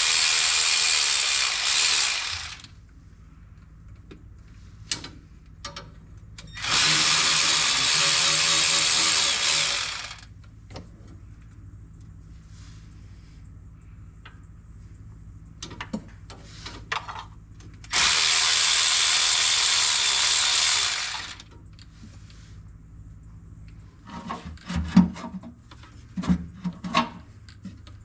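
A power tool runs three times, about three seconds each, spinning out oil pan bolts with a socket. Small metal clicks come between the runs, and a cluster of clinks near the end.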